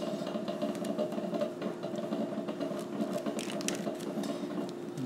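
Hands handling a bundle of wire harness cords with plastic plugs, giving light rustling and scattered small clicks, over a steady low background hum.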